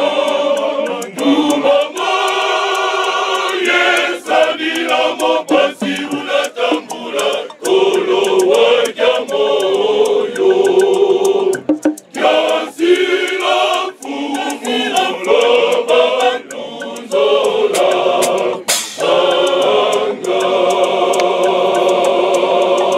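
Male choir singing in harmony, with sharp percussive hits through the singing.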